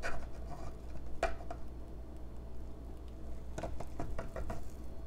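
Spatula scraping and knocking inside a plastic pouring-spout container, working stiff, freezer-chilled body butter off its sides and corners: a few scattered soft knocks, with a cluster of them from about three and a half to four and a half seconds in.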